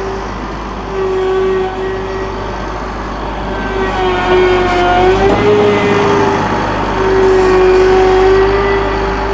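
Cat Challenger MT765C tracked tractor running, its diesel engine droning with a steady high whine on top; the whine wavers and the low rumble drops out briefly about five seconds in.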